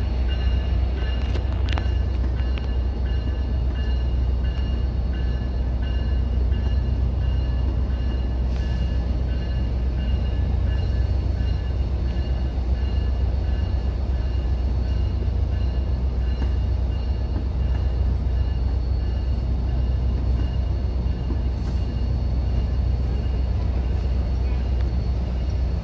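NJ Transit double-deck passenger coaches rolling past: a steady low rumble of wheels on rail with a faint steady high whine, and a single click about two seconds in.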